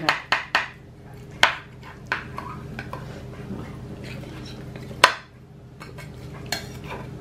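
Metal serving spoon scraping and clinking against a glass baking dish while scooping out a baked casserole: a series of sharp clinks, the loudest about five seconds in, over a faint steady hum.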